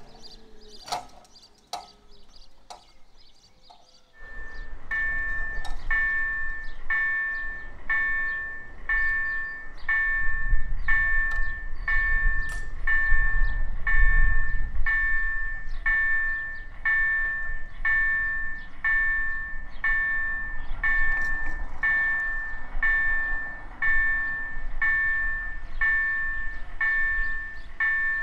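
Railway level-crossing warning bell: an electronic gong struck over and over at a steady pace, about one and a half strikes a second, warning that a train is approaching and the barriers are down. It starts suddenly about four seconds in, after a few faint clicks, and a low rumble swells under it in the middle.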